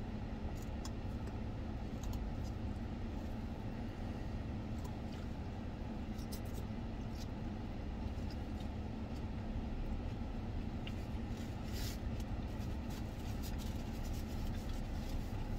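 Salad being eaten with a fork: faint crunching and scattered small clicks over a steady low hum in a car's cabin.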